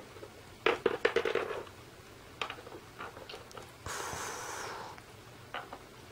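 Small plastic toy figures and pieces clicking and knocking against a toy table and a wooden floor as they are moved by hand: a quick cluster of knocks about a second in, scattered taps after, and a short hiss about four seconds in.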